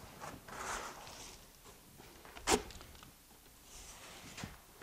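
Trowel spreading wet EIFS base coat across foam insulation board: faint scraping strokes, with one sharp knock about two and a half seconds in and a couple of smaller ticks near the end.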